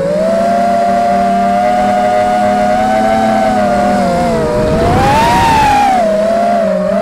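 Small quadcopter drone's electric motors and propellers whining in flight, heard from a camera mounted on the drone. The pitch holds steady, then rises and falls again about five seconds in as the motors speed up and slow down.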